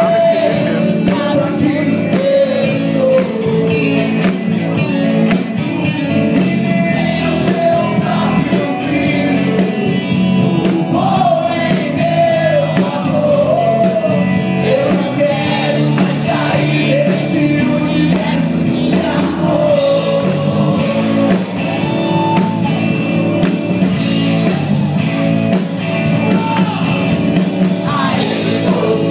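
Live rock band playing loudly, with electric guitars and a singing voice.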